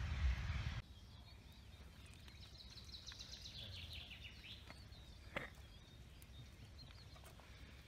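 A loud rushing noise with a deep rumble cuts off abruptly within the first second. Faint birdsong follows, a quick run of high chirps about three to four seconds in, with a single sharp click a little after five seconds.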